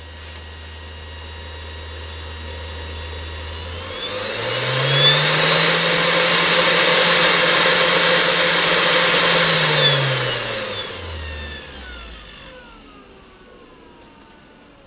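Machifit 500W ER11 DC spindle motor running with nothing in the collet. Its whine rises in pitch as the potentiometer speed control is turned up about four seconds in, holds steady at high speed, then falls again as it is turned back down near the end.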